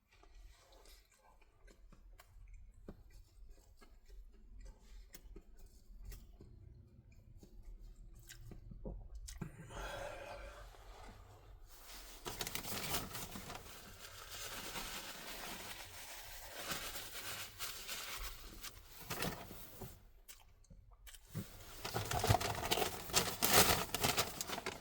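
Chewing with soft mouth clicks. About halfway through, a paper fast-food bag and its wrappers start rustling and crinkling, and this is loudest near the end.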